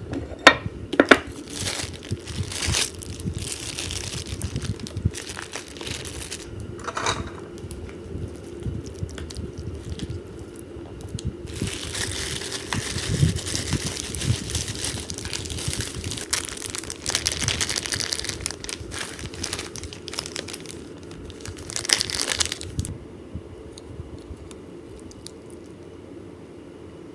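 Plastic bag crinkling and rustling in bursts, with a long dense stretch of crinkling in the middle, and a few sharp clicks of chopsticks against a ceramic bowl.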